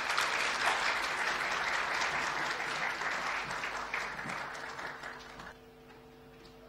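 Audience applauding, the clapping thinning and dying away about five and a half seconds in.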